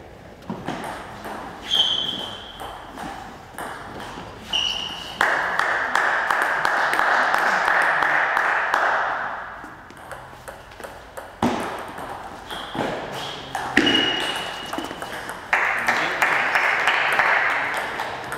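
Table tennis balls clicking off bats and tables in a sports hall, with several short high ringing pings. Two longer spells of even crowd noise rise over it, the second building toward the end as the point is won.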